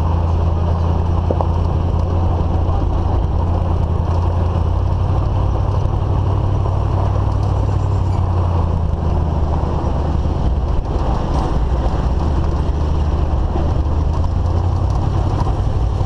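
GMC Suburban towing a loaded trailer along a dirt road: a steady low engine drone with road noise, its pitch shifting slightly a few seconds in as the speed changes. Heard from the rear window, where the camera is mounted.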